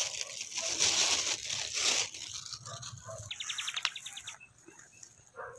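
Thin plastic bag rustling and crinkling as it is handled. A little past the middle comes a brief, rapid train of high ticks, about a dozen in half a second.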